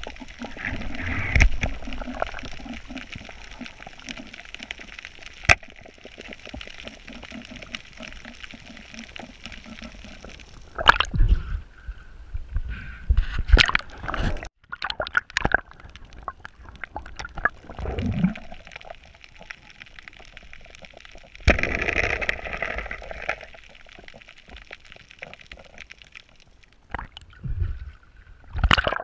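Water sloshing and gurgling around a spearfisher's submerged camera during a night freedive, muffled, with louder splashes every few seconds.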